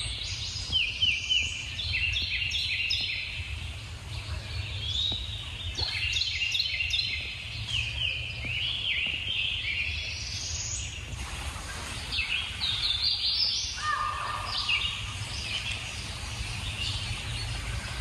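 Songbirds singing in woodland: a continuous run of short, quick chirps and trills, with a lower call about three-quarters of the way through, over a steady low rumble.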